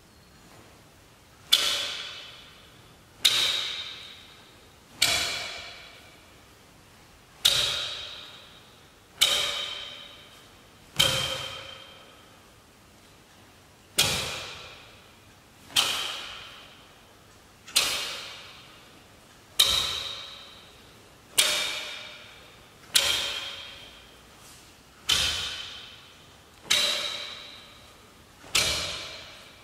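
Sharp cracks, one with each technique of a taekwon-do pattern, coming about every two seconds at an uneven pace. Each crack rings on and fades over a second or two in a large, echoing hall.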